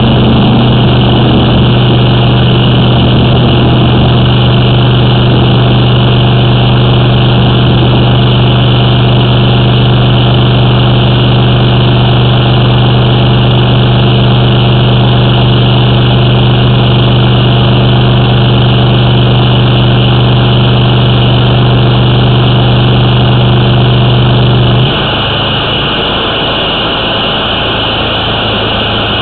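Engine of a high-pressure water drain jetter running steadily with a low, even hum. Near the end its note drops a little and it gets quieter.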